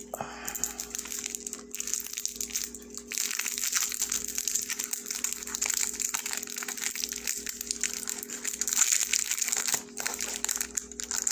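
Dense, continuous crackling and crinkling noise that thickens sharply about three seconds in, over a faint steady hum.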